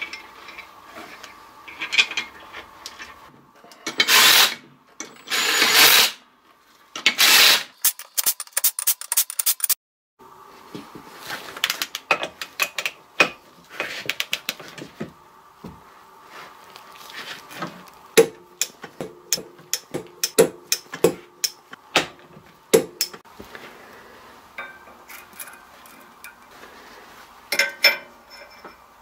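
Hand tools and metal parts being worked on a Ford 8.8 rear differential carrier: three noisy bursts of about a second each, a quick run of ratchet-like clicks, then many scattered sharp metal taps and clinks.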